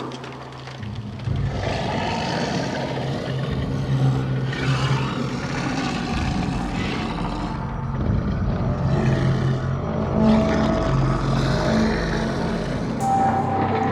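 Sound-designed horror ambience: a continuous low, engine-like droning rumble with a steady hum, and swells of hissing noise that rise and fall every few seconds.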